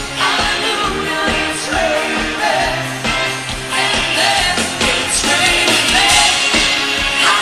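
Loud pop music with a sung vocal over a steady beat.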